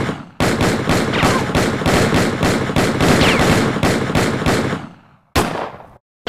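A fast volley of gunshots, about five a second, with a falling whine over it twice, tapering off about five seconds in, then a single last shot.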